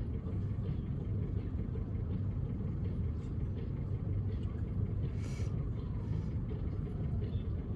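Steady low rumble of street traffic, with a short hiss about five seconds in.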